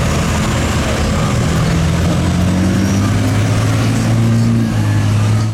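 A motor vehicle's engine running steadily, a low hum under a broad rushing noise, which stops abruptly at the end.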